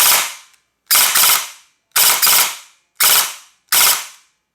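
Airsoft electric gun (AEG), its gearbox driven by a Novatech Xpert GP-350 brushless motor, firing short rattling bursts about once a second, each a quick cluster of shots.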